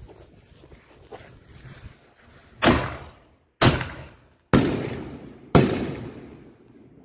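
Four firework bangs, each a sudden loud boom that dies away over about a second, from aerial shells launching and bursting overhead. Fainter crackling comes before the first bang.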